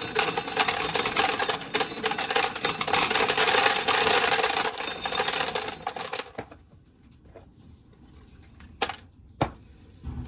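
Corn sheller running with a dense mechanical rattle and a steady hum, stopping abruptly about six seconds in, followed by two sharp clicks.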